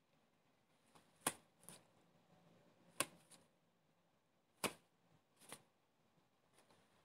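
Sharp light taps and clicks: hands folding and pressing soft dough on a marble counter. Three clear clicks come about a second and a half apart, with fainter ones between, over a low room hum.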